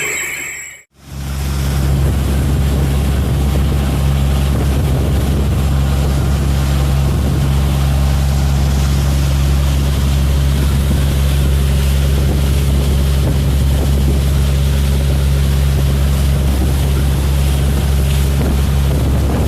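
Six-cylinder four-stroke Volvo marine engine running steadily, a loud, even, deep hum, coming in after a brief drop-out about a second in.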